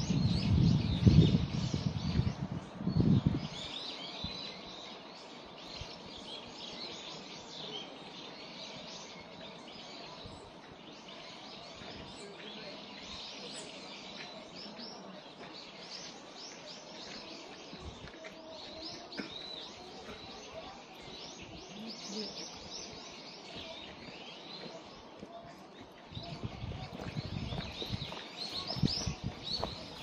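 Small songbirds chirping and twittering continually, many short high calls overlapping. Low rumbling bursts on the microphone in the first few seconds and again near the end.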